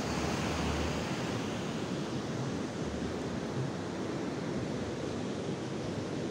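Big ocean waves breaking and washing on a beach, a steady roar of surf, with wind buffeting the microphone now and then.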